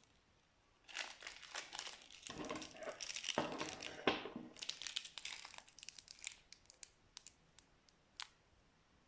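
A plastic piping bag crinkling as it is squeezed and handled with slime inside, dense for a few seconds, then thinning to scattered small clicks and pops that die out near the end.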